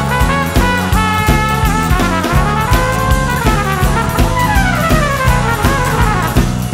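Swing-jazz song playing as background music, an instrumental passage with brass and a steady drum beat; a long falling brass phrase runs through the second half.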